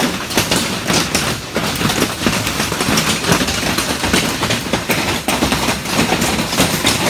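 Hail and rain drumming on a metal roof overhead: a dense, continuous clatter of countless small impacts.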